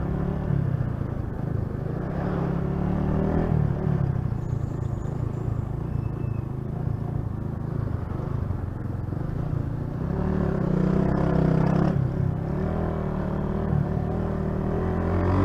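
Honda CG 125 Titan's single-cylinder engine running under the rider, pulling away and accelerating, its pitch rising and dropping several times with throttle and gear changes, loudest about ten to twelve seconds in.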